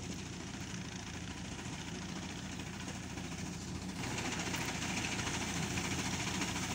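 Fiat tractor's engine running steadily while driving a front-mounted reaper cutting standing wheat. It grows louder about four seconds in as the tractor comes closer.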